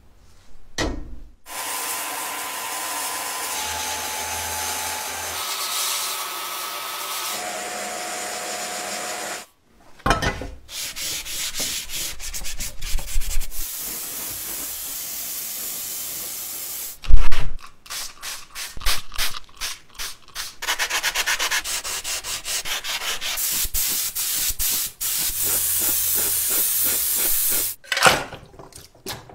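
Abrasive sanding and rubbing of paint and rust off a pressed-steel toy car body, in several short takes. In the first stretch a steady whine steps between pitches, and there is a run of sharp clicks and knocks about two-thirds of the way through.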